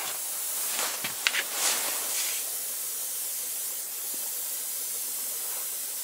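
Air hissing steadily out of a car tyre as it is let down, with a couple of light clicks about a second in.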